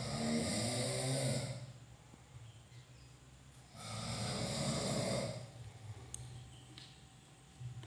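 A person snoring: two long snores about four seconds apart, with a third starting right at the end and quieter breathing between.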